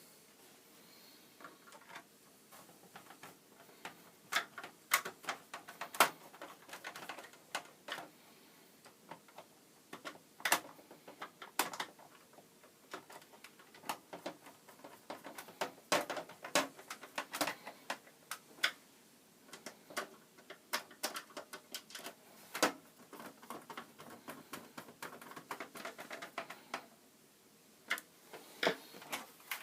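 Irregular small clicks and taps of a screwdriver working on a Commodore 64C's plastic case as its three case screws are driven back in.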